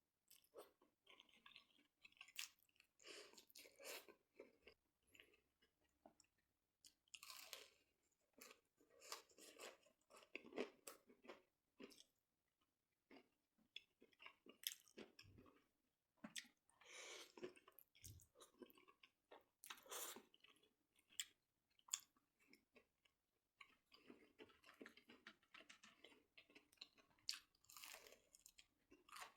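A person chewing and crunching food close to the microphone, in irregular bursts with sharp clicks and bites between them.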